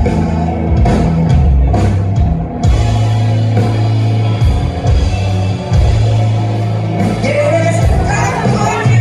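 Live rock band playing loudly, with electric guitar, heavy bass notes and a male lead vocal singing, clearest near the end.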